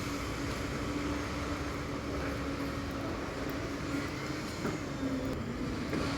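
Concrete mixer machine with a lift running steadily, a constant engine hum with one steady tone through it.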